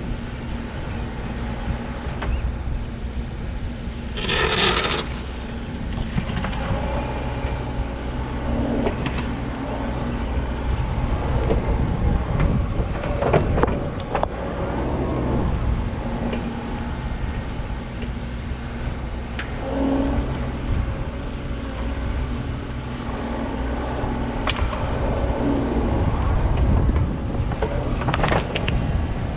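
Backhoe's diesel engine running steadily under work, with occasional metal clanks and knocks and a brief hiss about four seconds in.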